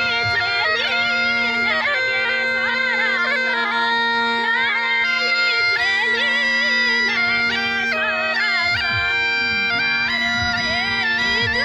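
Mashakbeen, the hill bagpipe, playing a heavily ornamented melody over a steady drone, with low drum beats joining in the later part.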